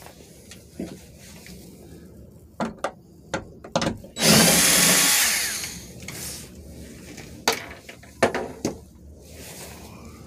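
A power drill-driver runs in one burst of about a second, a little after four seconds in, backing out a fastener on the sunroof frame. Scattered sharp clicks and knocks of tools and parts being handled come before and after it.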